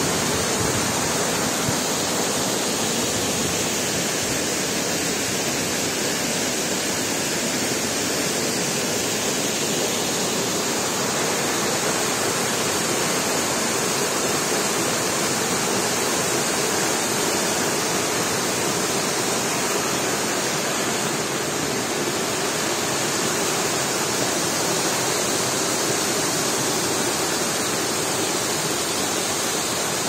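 Bigăr waterfall pouring over its moss-covered rock dome into the pool below: a steady, even rush of falling water in heavy winter flow.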